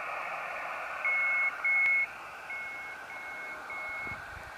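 Yaesu FT-817 HF transceiver's speaker hissing with band noise, with a high, steady Morse code tone keyed in five dash-length beeps starting about a second in.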